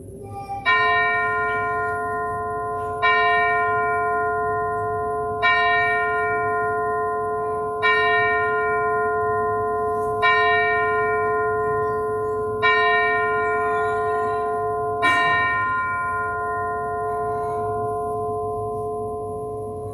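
A bell struck seven times at an even pace, about every two and a half seconds, each stroke on the same note and ringing on as it fades. The tolling marks the pause that opens the worship service.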